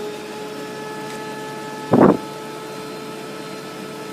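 Webasto HL90 diesel heater's blower fan running at a steady hum during start-up, with the fuel pump just started. About two seconds in there is a single short, loud thump.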